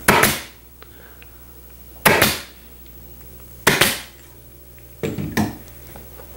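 Pneumatic upholstery staple gun firing staples through padding into a wooden tack strip on a chair frame: a series of sharp shots about a second and a half apart, each trailing off quickly.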